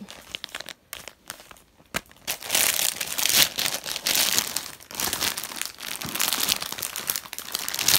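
Clear plastic packaging crinkling as it is handled: a few scattered crackles at first, then dense and louder from about two and a half seconds in.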